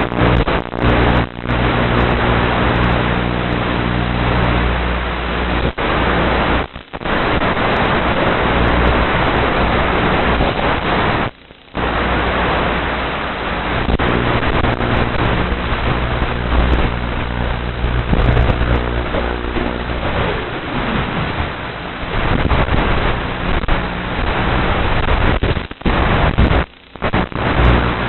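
FPV quadcopter in flight, heard from its onboard camera: a steady motor and propeller hum under heavy wind rush over the microphone, the sound dropping out briefly a few times.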